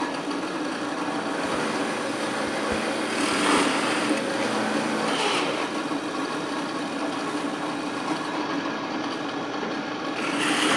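Floor-standing drill press running steadily, its bit boring into a block of wood; the cutting noise swells a few times as the bit is fed down.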